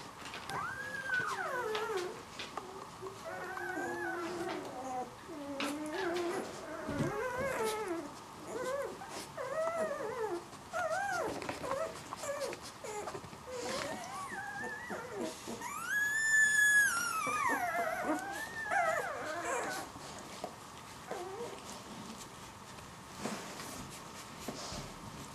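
A litter of ten-day-old puppies whimpering and squealing: many short, wavering cries overlapping. About two-thirds of the way in, one louder, higher squeal stands out, and the crying eases off near the end.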